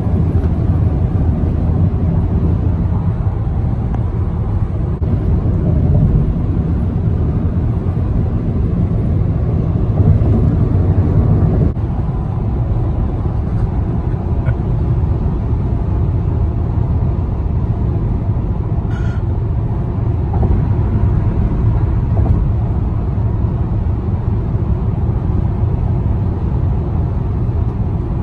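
Steady road noise of a car at freeway speed, heard inside the cabin: a continuous low rumble of tyres and engine, easing slightly about twelve seconds in.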